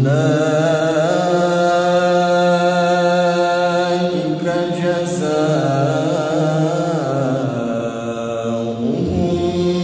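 A male qari reciting the Qur'an in melodic tilawah style: a new phrase begins at once after a pause, sung in long held notes with winding ornaments, with a short break and a fresh note near the end.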